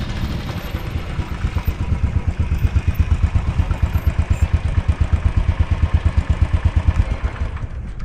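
Royal Enfield motorcycle engine pulling up and idling with a steady, even thump. The engine stops abruptly near the end.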